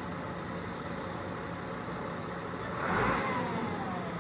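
A van's engine running under load as it tries to pull its wheel out of a trench, with a brief surge of noise about three seconds in and a whine that falls in pitch as it eases off.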